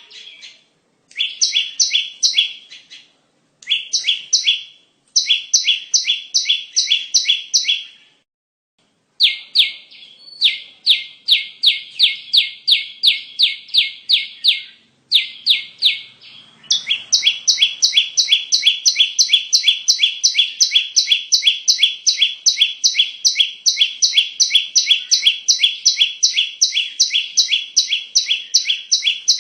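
Prinia (perenjak) song used as a lure call: loud runs of sharp, quickly repeated notes, about three a second, broken by short pauses in the first half, then an unbroken run from a little past halfway.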